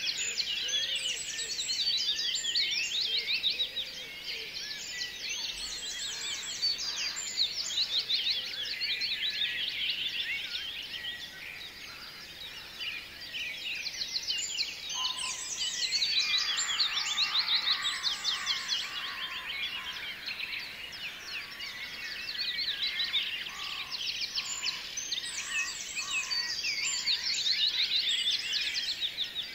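Dense, high-pitched bird chirping and trills in busy phrases that come back roughly every ten seconds, over a steady background hiss.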